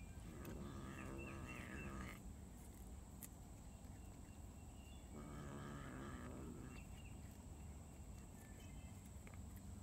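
A cat growling twice, each a drawn-out growl of under two seconds, the first at the start and the second about five seconds in: a cat guarding a found scrap of food from the cats around it.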